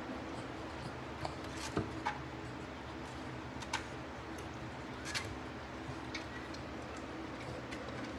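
Steady low room hum with about half a dozen soft clicks and rustles scattered through it, from a Boston Terrier mother nosing about among her newborn puppies and the towel in a whelping box.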